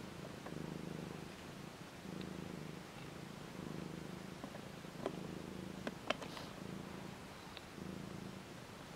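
Mother cat purring steadily, the purr coming in stretches of about a second with short breaks between, in time with her breathing. A few soft clicks sound around the middle.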